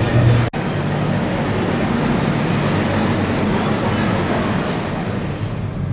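Steady outdoor ambience of traffic noise with a low hum, broken by an abrupt cut about half a second in.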